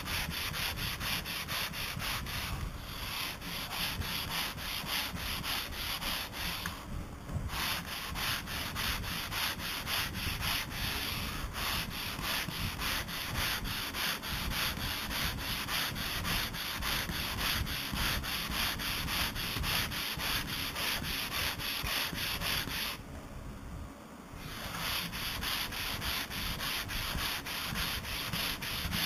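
Sandpaper on a Flexicat longboard rasping back and forth across the faired boat hull in rapid, even strokes. The sanding stops briefly about seven seconds in and again for about a second and a half a little past the two-thirds mark.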